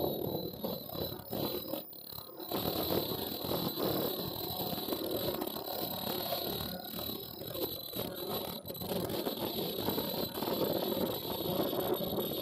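Automatic tie-on flat mask welding machine running with its conveyor: a steady, dense mechanical clatter with a constant high whine over it.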